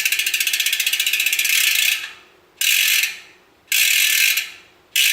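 Rear wheel's Chosen 11-speed freehub clicking rapidly as the wheel is spun, its pawls ratcheting loudly. The clicking dies away and starts again abruptly three times as the wheel is spun again. It is louder than the owner would like.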